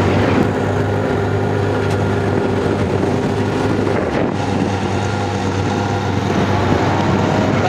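Race car engine idling steadily with an even low hum.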